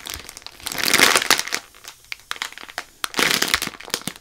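Clear plastic bag packaging around a squishy toy crinkling as it is handled and turned. There are two louder bursts of rustling, about a second in and again just after three seconds, with small crackles between.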